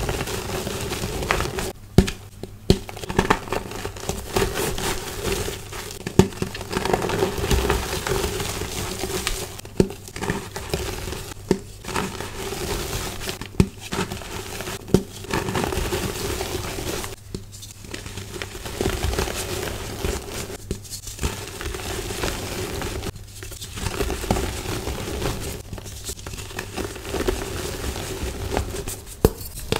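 Gym chalk blocks being crushed and crumbled between the fingers: a dense, crisp crunching and crackling with sharp snaps as chunks break. It pauses briefly several times, then starts again.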